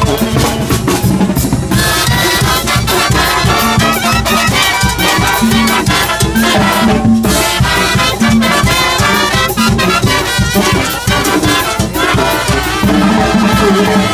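Banda brass band playing: trumpets and trombones over a steady pulsing beat.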